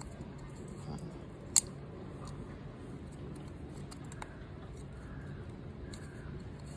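Handling sounds of an oil filter housing cap as its rubber O-ring seal is pried out of the groove by hand, with one sharp click about a second and a half in and a smaller one a few seconds later.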